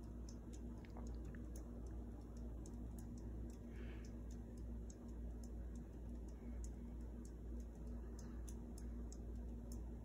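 Harbor Breeze Builder's Best ceiling fan running: a low, steady motor hum with faint ticking about twice a second.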